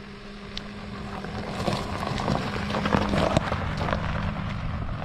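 A vehicle engine idling steadily with a low, even hum. A louder rustling noise rises over it from about a second and a half in and fades near the end.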